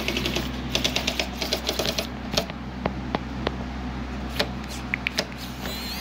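Small cordless electric screwdriver working a screw out of a laser printer's casing: a fast, even run of clicks for about the first two seconds, then a few scattered single clicks.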